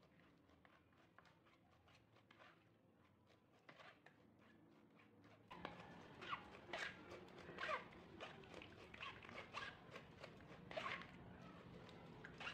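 Faint scraping and clicking of a metal spoon working passion fruit pulp through a plastic sieve. About halfway through, a faint background of short calls that rise and fall in pitch comes in.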